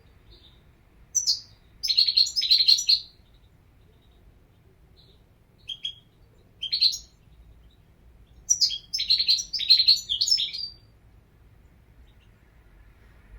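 European goldfinch singing: two bouts of rapid, high twittering song a couple of seconds each, with a few single chirps between them.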